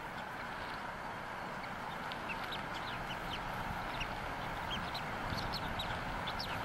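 Newly hatched bald eaglet peeping: short, high chirps that start about two seconds in and come more often toward the end, over a steady hiss.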